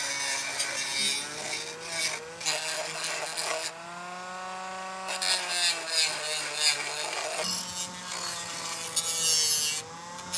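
Handheld rotary tool spinning a small abrasive disc against steel parts of a vise, grinding them. The motor's whine sags and rises in pitch as the parts are pressed on and eased off, over a scraping rasp of metal on the disc.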